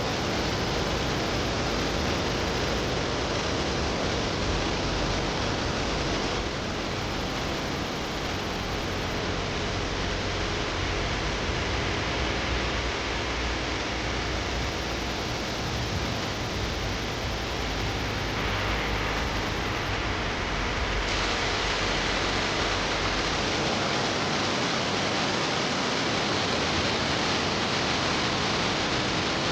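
Steady rush of falling water, a waterfall's constant roar, with a few abrupt shifts in its tone where one shot cuts to the next.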